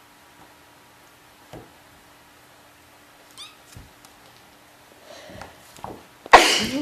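Kittens playing on a wooden floor: a few light knocks and one short high mew about halfway through, then a single loud human sneeze near the end.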